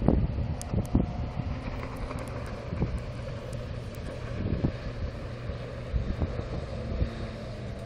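Wind noise buffeting the phone's microphone, with the faint steady drone of a distant small powercraft's engine out on the water.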